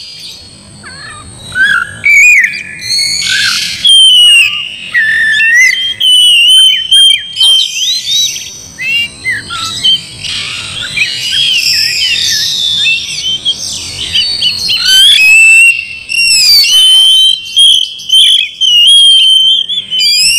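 Oriental magpie-robin singing loudly in full voice: a fast, varied run of clear whistles, slurred notes and chatter, with long held whistles around the middle and again near the end.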